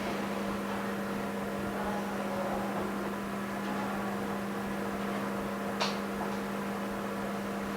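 Steady electrical hum, with one sharp click about six seconds in.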